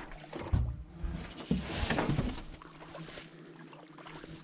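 Fishing gear being packed away by hand: a couple of dull knocks about half a second and a second and a half in, with rustling around two seconds in.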